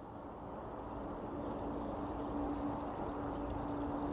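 Outdoor ambience dominated by a steady high-pitched chirring of crickets, over a low rumble and a faint steady low hum, fading in over the first second. No axe strikes are heard.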